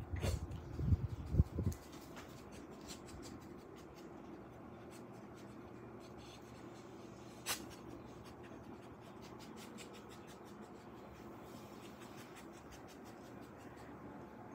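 A small dog sniffing close up at a person's skin: faint, quick, scratchy sniffs. There are bumps and rubbing in the first two seconds, and one sharper tick about halfway through.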